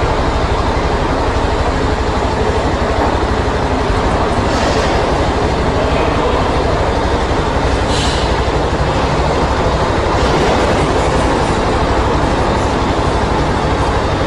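Motorcycle engine idling steadily close to the helmet-mounted microphone, an even, rapid pulsing.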